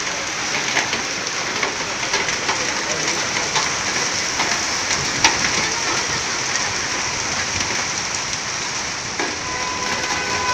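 Heavy rain falling: a steady, dense hiss of rain with many small drop ticks through it, and one sharper tap about five seconds in.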